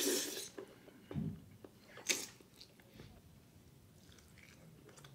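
A person slurping in a mouthful of soft teppanyaki noodles at the start, then chewing, with a second short, sharp mouth sound about two seconds in and faint smacking clicks after.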